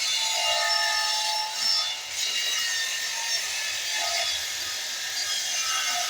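A saw cutting through wood, a continuous rasping sound with a brief dip about two seconds in.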